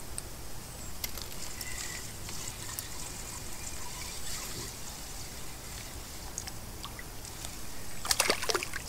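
Faint trickling water through most of the stretch, then about eight seconds in a short burst of splashing as a hooked striped bass thrashes at the surface near the bank.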